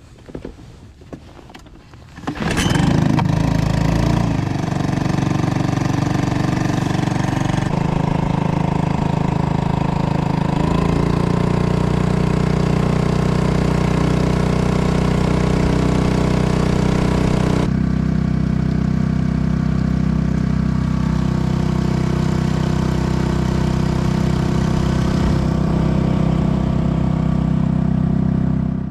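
Honda 2 hp four-stroke outboard motor starting up about two seconds in and then running steadily under way, its note shifting a few times.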